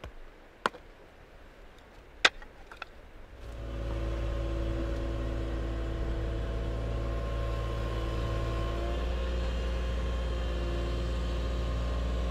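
Two sharp strikes of a hand tool into the roots of a stump, then a compact excavator's engine starts being heard about three and a half seconds in and runs steadily.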